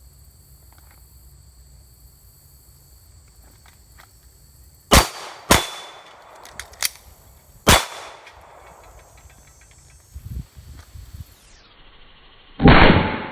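Glock 23 pistol with a 9mm conversion barrel firing four shots. The first two are about half a second apart, about five seconds in, the third comes two seconds later, and the loudest comes near the end. Fainter clicks and thuds fall between the shots.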